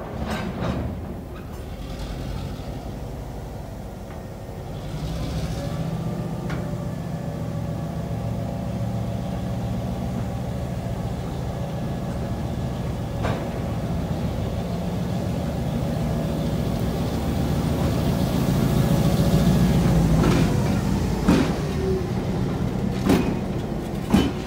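Diesel switcher locomotive running as it moves slowly past with a string of hopper cars. Its low engine drone grows louder as it draws near, loudest shortly before the end. There are a few sharp metallic clanks from the train near the middle and end.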